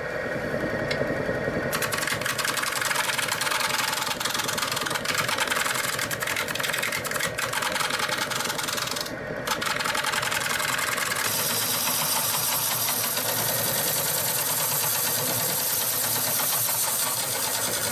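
Wood lathe spinning a large maple bowl blank while a turning tool cuts the outside, a steady scraping hiss with a fast, even chatter. The cut breaks off briefly about nine seconds in, and from about eleven seconds it goes on higher and hissier.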